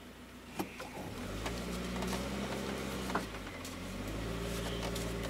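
GAZelle light truck's engine pulling away, heard from inside the cab: a click about half a second in, then the engine picks up; a click and a brief dip near the middle as the gear is changed, then it pulls again.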